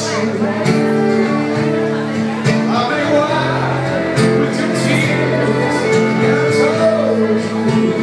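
Live acoustic music: a steel-string acoustic guitar played at the microphone, with held notes ringing under it and a voice singing a few phrases.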